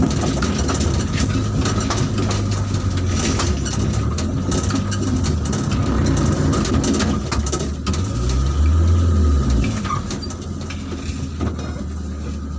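A loaded truck's engine running as the truck moves slowly, heard from inside the cab, with a steady low drone and frequent rattles and knocks. The engine note swells for a second or so about eight seconds in.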